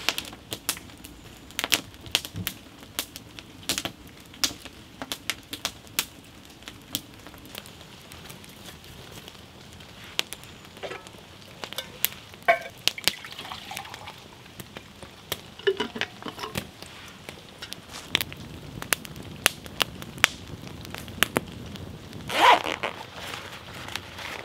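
Freshly lit wood campfire of dry twigs and split pine crackling and popping, with irregular sharp snaps over a low hiss. A brief louder sound comes near the end.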